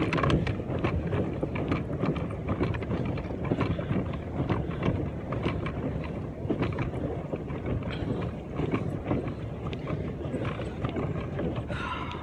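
Pedal boat underway: a steady churning noise with many short knocks from the pedal drive and paddle wheel, mixed with wind buffeting the microphone.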